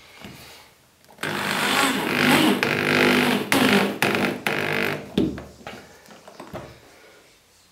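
Cordless drill driving a screw through a rod holder's flange into a kayak's plastic deck. The motor whines in a string of short bursts for about four seconds, starting about a second in, then trails off in a few weaker bursts.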